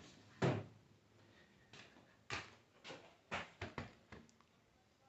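Light knocks and clicks of tools and metal alternator parts being handled, about seven short sounds, most of them in the second half.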